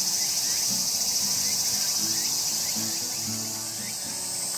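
Steady high-pitched drone of summer insects, with soft background music notes underneath.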